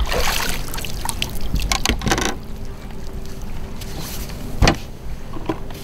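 Handling noise in a small jon boat: a few sharp knocks over rushing noise, with a faint steady hum underneath from about two seconds in.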